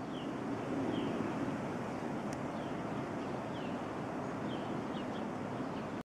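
Blizzard wind blowing steadily, with short high chirps from a small bird several times through it.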